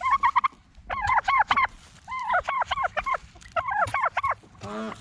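Domestic turkey toms gobbling: four rapid rattling gobbles in a row, with a lower call near the end.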